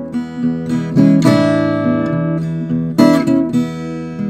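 Acoustic guitar playing a slow blues: chords strummed about a second in and again near three seconds, each left to ring out and fade.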